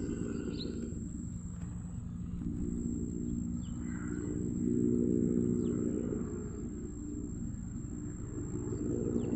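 A low, steady engine hum that grows a little louder about halfway through and then eases off.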